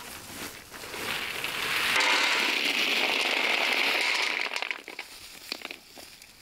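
In-shell walnuts pouring out of a sack into a plastic basin: a dense rattling clatter of nuts hitting one another that builds about a second in, holds for a couple of seconds, then thins out to a few scattered clicks.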